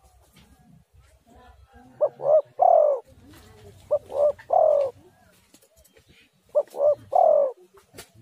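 Spotted dove (tekukur) cooing: three phrases about two seconds apart, each two short coos followed by a longer, falling coo.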